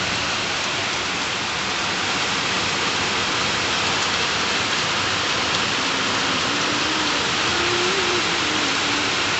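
Heavy rain falling and hitting surfaces in a steady, even hiss. A faint wavering tone comes in low under the rain over the last few seconds.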